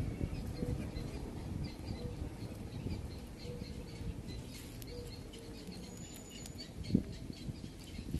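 Small birds chirping over and over, short high notes several times a second, over a steady low rustle, with one sharp knock about seven seconds in.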